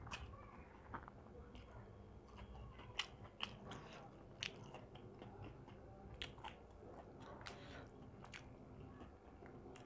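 Quiet, close-up chewing of a mouthful of noodles, with scattered sharp clicks of a metal fork against the foil trays and plate.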